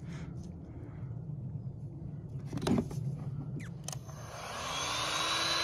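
A low steady rumble with a few clicks and a knock about halfway through; near the end an electric heat gun is switched on, its fan whine rising and settling into a steady blowing that grows louder.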